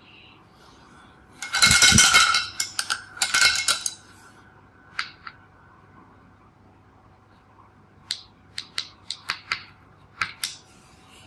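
Painting supplies handled off to the side: a rustling, clattering stretch in the first few seconds, then a run of light, sharp clicks and taps, like a brush and paint containers knocking together.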